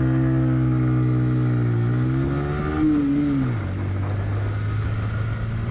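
Cruiser motorcycle engine running while ridden, a steady note that rises a little and then drops to a lower, steady pitch about three and a half seconds in.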